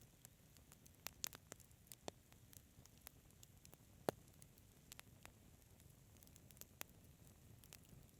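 Wood fire burning quietly, with irregular sharp crackles and pops over a soft low rush of the flames; the loudest pop comes about four seconds in.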